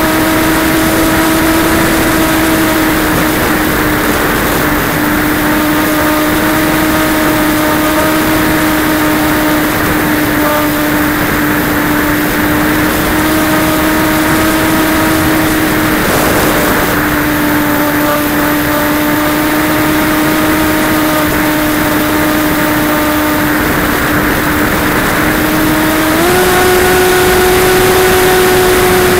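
Multiplex DogFighter RC model plane in flight, heard from its onboard camera: the electric motor and propeller drone steadily under heavy wind rush over the microphone. The pitch dips slightly now and then and steps up about three seconds before the end as the motor speeds up.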